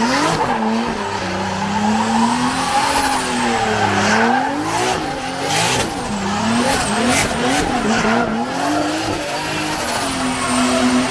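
A drift car's engine revving up and down repeatedly on and off the throttle, with tyres squealing as the car slides.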